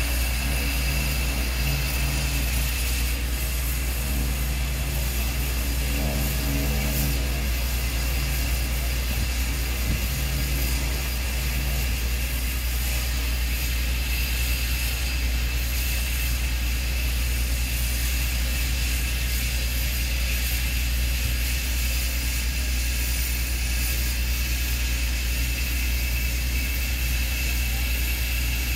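Small single-engine skydiving plane's engine running steadily on the ground, a continuous drone with a thin steady high whine.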